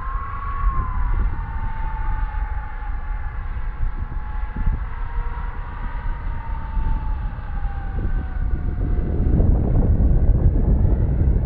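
FMS F-16 model jet's 70mm electric ducted fan whining during a slow, nose-high low pass. The whine wavers and slowly falls in pitch, then gives way to a louder rushing sound near the end, with wind rumbling on the microphone throughout.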